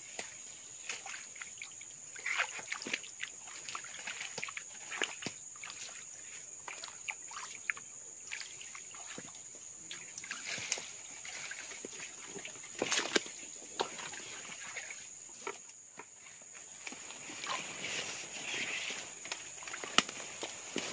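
A machete chopping and scraping at roots and mud around a small waterlogged hole, giving scattered sharp knocks, with water sloshing as a hand works in the puddle. A steady high insect drone runs underneath.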